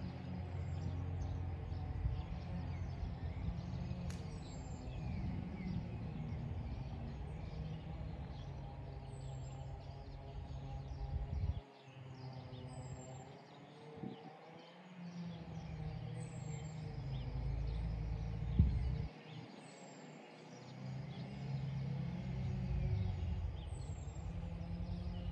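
Wind gusting across the microphone in a low rumble that drops away briefly several times, with a bird giving a short, high note about every three to four seconds and a faint steady hum underneath. About three-quarters of the way through there is one sharp thump, the loudest sound.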